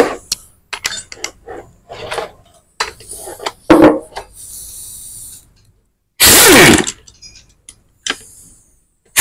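Impact wrench loosening a motorcycle crankcase bolt: light clicks of metal being handled and a brief hiss, then one short loud burst of the wrench about six seconds in, its pitch falling as it winds down.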